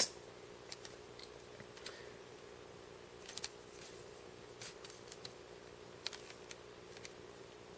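Thornton P221 slide rule being handled, its slide and cursor pushed along by hand, giving faint, scattered clicks and scrapes over a low steady hum.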